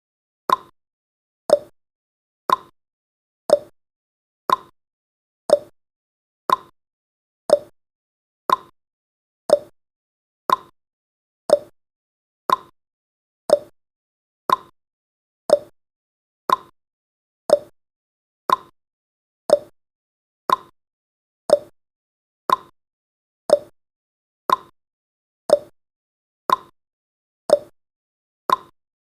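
Countdown timer's ticking sound effect: one short tick every second, evenly spaced and steady.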